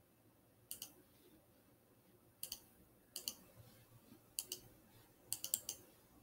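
Computer mouse clicks, faint and sharp, mostly in quick press-and-release pairs about a second or so apart, with a quicker cluster of clicks near the end.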